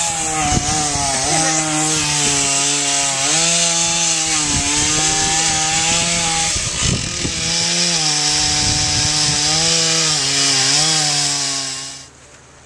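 Gas chainsaw cutting through a pepper tree trunk. The engine runs at high revs, its pitch dipping and recovering each time the chain bites into the wood, and it cuts off near the end.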